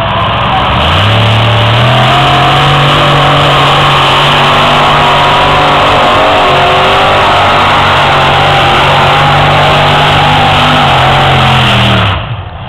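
Competition pulling tractor's engine run flat out while hauling the weight sled down the track: very loud, the pitch climbing about a second in, holding steady, then dropping away near the end as the run finishes.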